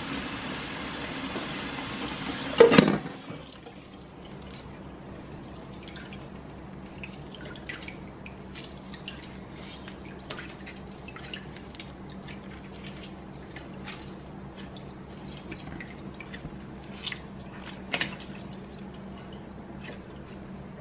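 Kitchen tap running into a stainless steel sink, stopping about three seconds in with a loud knock. Then small splashes, drips and wet handling sounds as a fish is rubbed with lemon in a glass bowl of water, with a sharper click near the end.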